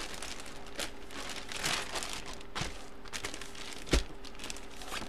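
Clear plastic bag crinkling and rustling as it is handled and opened, in irregular bursts, with one sharp click about four seconds in.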